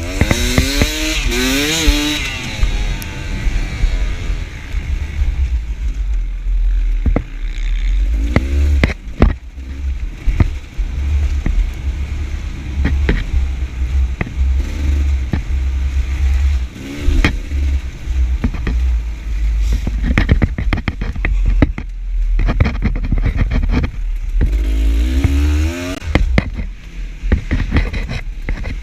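Two-stroke enduro dirt bike engine revving up and down repeatedly as it is ridden over rough ground, with frequent knocks and clatter and a constant deep rumble underneath.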